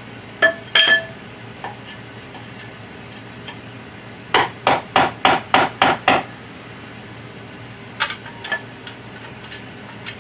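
White-headed mallet tapping aluminium square-tube uprights into the frame's connectors. A couple of ringing clinks come near the start, then a quick run of about seven strikes, about four a second, and a few more strikes later.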